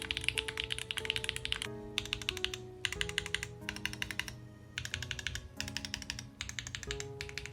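Fast typing on a mechanical keyboard fitted with Gateron Weightlessness tactile switches on an aluminium plate, a bright, clacky sound, with a few short pauses. Soft background music plays underneath.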